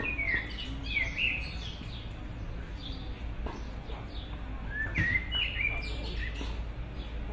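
Birds chirping: a flurry of quick sweeping calls near the start and another about five seconds in, over a steady low background rumble.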